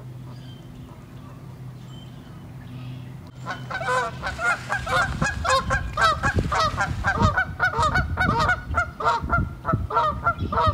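A group of geese honking, with many quick, overlapping honks several to the second. The honking starts about a third of the way in, over a low steady hum.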